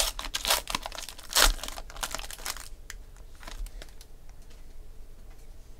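Foil trading-card pack being torn open and crinkled by hand, with the loudest tear about a second and a half in. The crinkling stops after about two and a half seconds, leaving a few faint clicks.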